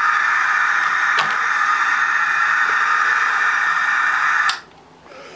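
Model locomotive's DCC sound-decoder horn through its small onboard speaker, one long blast that holds steady for about four and a half seconds and then cuts off abruptly. A single click sounds about a second in.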